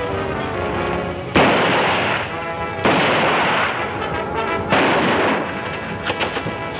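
Three gunshots, each with a long echoing tail, about a second and a half apart, over dramatic orchestral film music.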